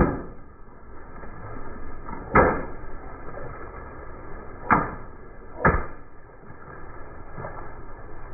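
Long modelling balloons bursting one after another under a slowly rolling car tyre: four sharp pops, one right at the start, one about two and a half seconds in, and two close together near the middle.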